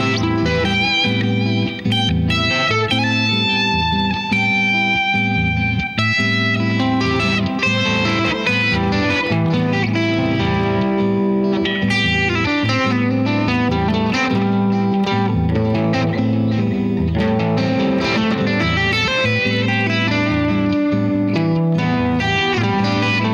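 Clean electric guitar, a Stratocaster-style solid body, picking wide-spaced open-triad voicings and melodic lines in A minor over a looped groove that keeps a steady low part sounding underneath.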